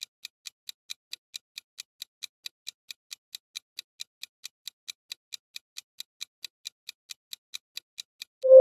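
Countdown-timer tick sound effect: quick, even clock-like ticks, about four a second, that stop just before the end as a musical chime comes in.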